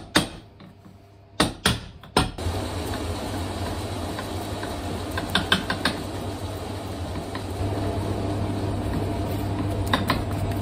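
A cobbler's hammer taps a boot's welt into place against the midsole on an iron last: about five sharp knocks in the first two seconds or so. A steady machine hum then takes over, with a few faint clicks.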